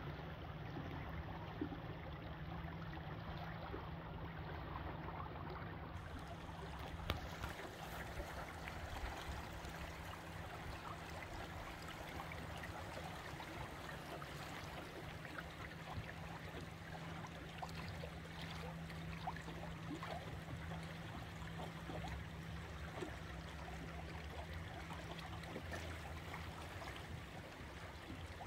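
Water rushing and gurgling alongside a moving boat in the tidal current, over a steady low hum.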